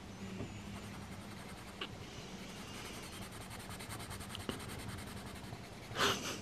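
Caran d'Ache Luminance coloured pencil rubbing softly on paper during colouring, with a few small ticks over a faint steady hum. A brief louder rush comes near the end.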